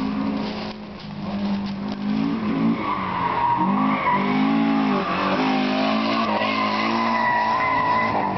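A car engine revving hard, rising and falling in pitch, as the car drifts round the track. From about three seconds in, a long steady tyre squeal joins it.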